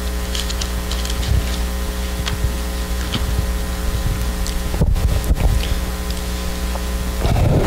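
Steady electrical hum and buzz, with faint clicks and rustles of Bible pages being turned to a passage, a few slightly louder ones about five seconds in.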